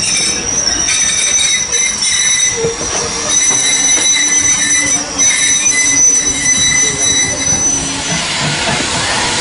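Railway carriage wheels squealing on the rails as the train moves through the station, a set of steady high-pitched tones over running noise. Near the end the squeal stops and a steady hiss takes over.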